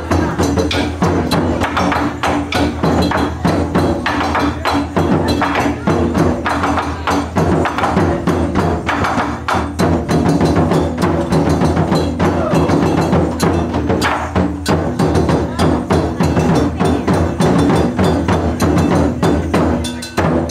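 Taiko drum ensemble playing: fast, dense strikes on large barrel drums, with sharp wooden clicks among the booming hits, keeping up without a break.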